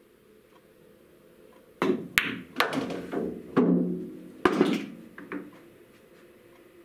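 Pool balls clacking: the cue strikes the cue ball, the cue ball hits the object ball, and a quick run of sharp clacks and knocks follows as the balls hit the cushions and the object ball drops into the pocket. About eight knocks fall in three and a half seconds, each ringing briefly.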